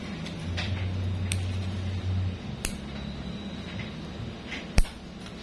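Steel nail clipper snipping a toenail: three sharp clicks, the loudest near the end, over a low steady hum.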